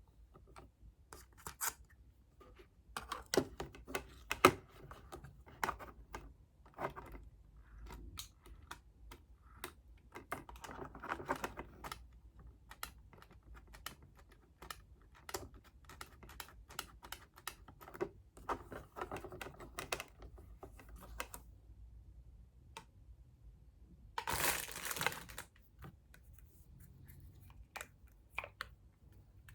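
Hands unpacking a cardboard parcel: scattered clicks, taps and rustling of cardboard and packaging. A louder tearing rasp runs for about a second and a half near the end, like tape or wrapping being pulled off.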